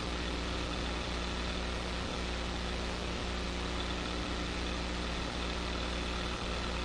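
Steady, even drone of a police helicopter's engine and rotors, heard through its onboard recording with no change in pitch or level.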